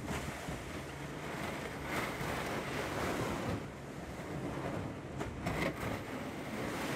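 Fibreglass canoe hull sliding over snow as it is towed by a rope, a continuous scraping hiss that swells and fades unevenly, with a few sharper scrapes about five seconds in.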